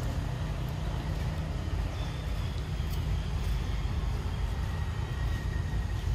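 Steady low outdoor rumble of background noise, with faint thin high tones drifting above it.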